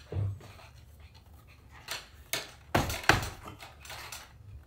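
Saddle seat leather being pressed and smoothed by hand over the saddle: a few short scuffs and rubbing sounds of leather against leather, the loudest cluster about three seconds in.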